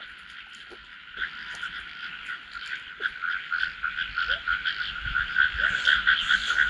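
Dense chorus of frogs calling from the wet field, a fast pulsing croak that grows louder and denser after the first second.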